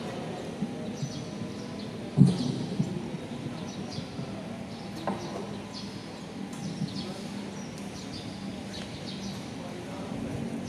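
Small birds chirping over and over, short high falling chirps, against a steady background of open-air venue noise. A single dull thump about two seconds in, and a faint click a few seconds later.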